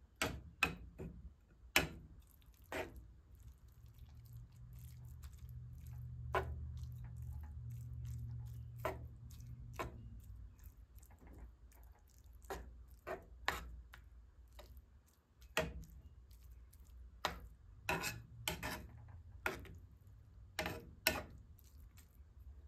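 Pan of thick ramen, butter and ketchup sauce cooking on the stove: scattered sharp ticks and pops at irregular intervals, over a low hum that swells a few seconds in and fades about ten seconds in.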